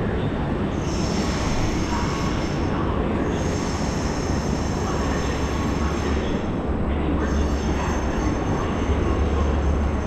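Building fire alarm sounding, set off by construction work. A high-pitched electronic tone comes in stretches of two to three seconds with short breaks, over a steady low rumble.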